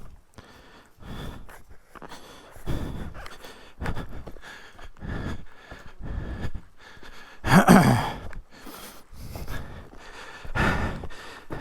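A person breathing hard, about one loud breath every second or so, with one louder, voiced breath a little past the middle.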